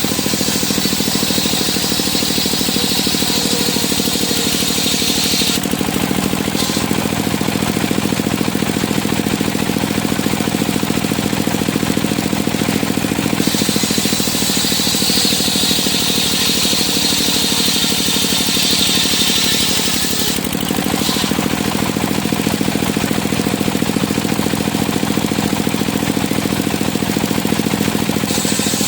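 Circular sawmill and its engine running steadily, with a high whine rising over the engine near the start and again in the middle, for several seconds each time.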